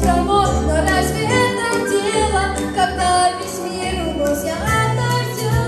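A boy singing a pop song into a handheld microphone over an instrumental backing track with bass and a steady beat.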